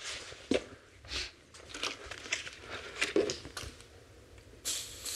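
Faint scattered crackles and small clicks, then a torch's steady hiss starts suddenly near the end as it is lit or opened up on a seized exhaust flange bolt.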